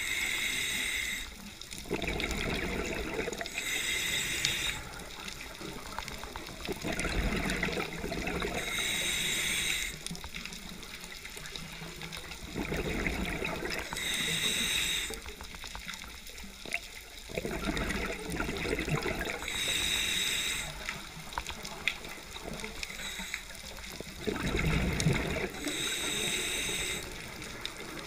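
Scuba diver breathing through a regulator underwater: a short hissing inhale followed by a rush of exhaled bubbles, repeating about every five seconds, six breaths in all.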